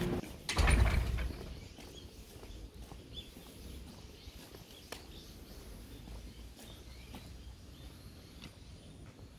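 A short, loud noise about half a second in, then quiet outdoor background with faint bird chirps and a single sharp click about five seconds in.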